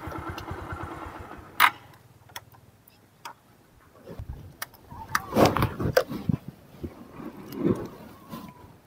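Motorbike engine idling after the bike pulls up, dying away within the first couple of seconds. It is followed by scattered sharp clicks and handling noises.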